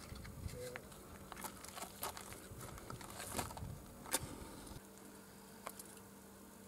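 Faint clicks and taps of charcoal being handled and placed in a metal braai fire pit, with one sharper click about four seconds in. Near the end the sound drops to a faint steady hum with an occasional tick.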